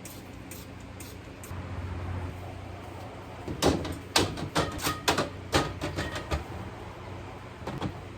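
A quick run of knocks and clatters, with a few light clinks, from things being handled and set down while a fridge is cleaned out. They come about three and a half seconds in and last some three seconds. A steady low hum runs underneath.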